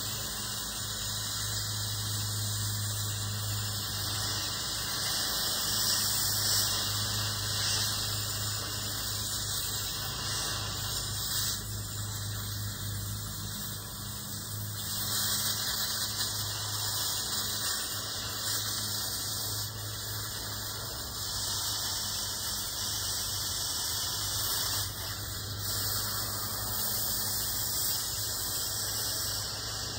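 Cutting torch hissing steadily as it cuts scrap metal, a continuous high-pitched hiss with a steady low hum underneath.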